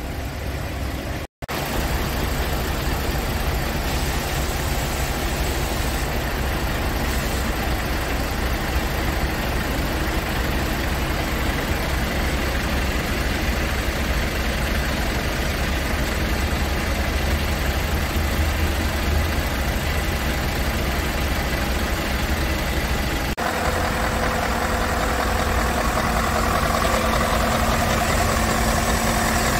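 Scania R520's 16-litre V8 diesel idling steadily. There is a brief dropout about a second in, and about 23 seconds in the engine sound becomes nearer and fuller, heard at the open front service hatch.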